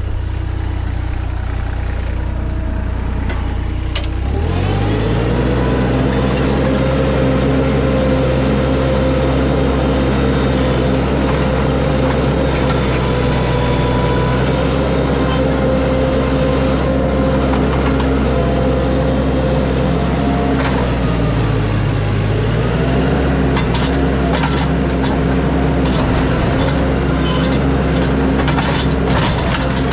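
A large vehicle engine steps up from a low idle to a higher steady speed about four seconds in and holds it, sags briefly about two-thirds of the way through, then picks back up. Scattered sharp cracks or knocks come near the end.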